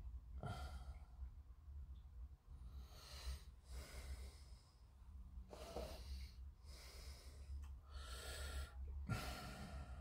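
A person breathing near the microphone: about seven faint breaths, one every second or so.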